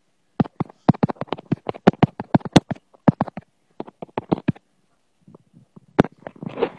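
A fast, irregular run of sharp clicks and taps close to the microphone, several a second, stopping about four and a half seconds in. A single sharper click and a brief rough scrape follow near the end.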